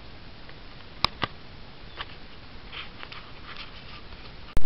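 Handling noise from a camera being set up and moved: two sharp clicks about a second in, faint scuffs and rustles, then one very loud click near the end.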